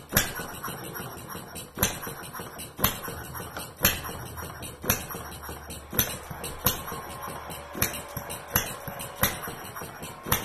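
Model hit-and-miss engine running, firing with a sharp bang about once a second at uneven intervals as it skips strokes between power strokes, with a steady mechanical rattle between the bangs.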